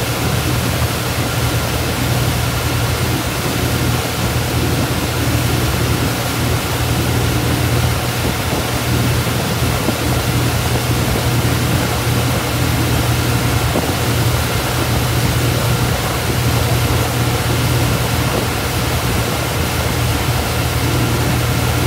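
Motorboat under way at speed: its engine runs with a steady low hum under the rushing of water churned up by the hull and the wake.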